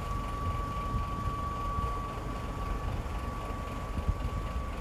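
Diesel engines of truck-mounted mobile cranes running steadily during a lift, a low rumble with a thin steady high whine over it.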